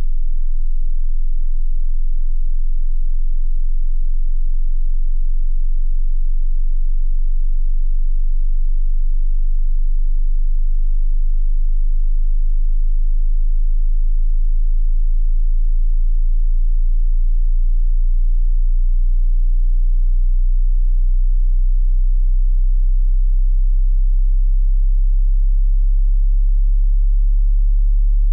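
A pure sine test tone for a hearing test, at a very low pitch below about 50 Hz. It holds steady and grows a little stronger toward the end.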